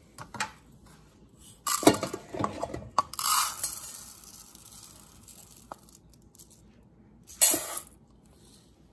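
Dry rice measured with a plastic measuring cup and poured into a rice cooker's inner pot: a few knocks and clatters, then a hiss of grains pouring for about a second that trails off, and another short rattle near the end.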